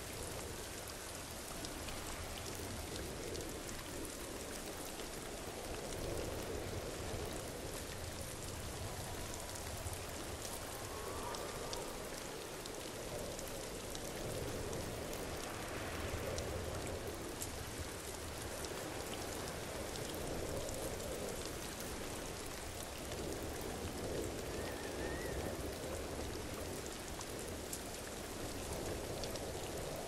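Waterfall: a steady splashing rush of falling water with fine droplet patter, swelling and easing gently every few seconds.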